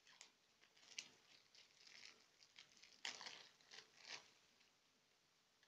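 Faint crinkling and crackling of thin plastic shrink wrap being torn and peeled off a deck of cards, with a few sharper crackles about one, three and four seconds in.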